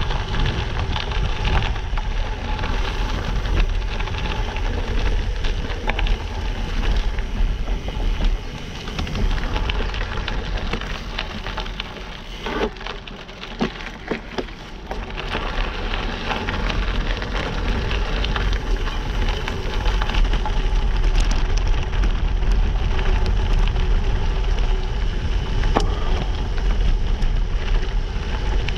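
Gravel bike rolling over a dirt and gravel trail: tyres crunching and crackling over stones and grit, the bike rattling, with wind rumbling on the microphone. It goes quieter for a few seconds around the middle.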